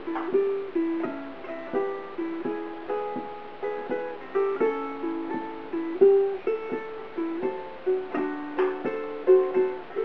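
Covered Bridge redwood-and-myrtle tenor ukulele picked in a blues style: single notes and two-note pairs ringing out at a steady pace of about two to three notes a second.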